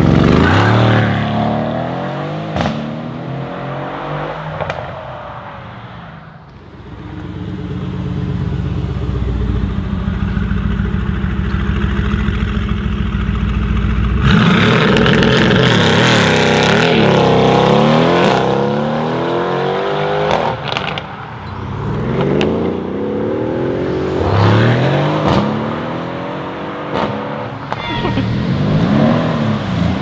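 Mercedes-AMG 4.0-litre twin-turbo V8 cars, a Brabus 700-tuned C63S estate and an AMG GT R, driving past and accelerating hard. A close pass with falling pitch comes first, then a steady low exhaust rumble, then loud full-throttle runs with rising revs and gear changes, with a few sharp exhaust cracks.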